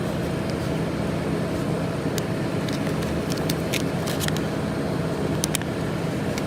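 Folding-box tape-applying machine running with a steady mechanical hum, with scattered sharp clicks.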